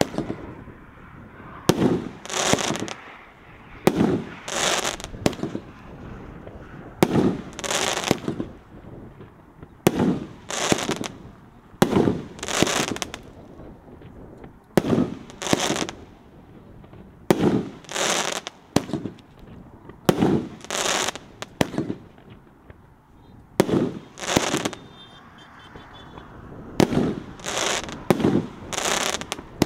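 A Happy Family Black Out consumer fireworks cake firing. The lit fuse sputters for about two seconds, then the cake fires a dozen or so shots, roughly one every two to three seconds, each a quick double bang.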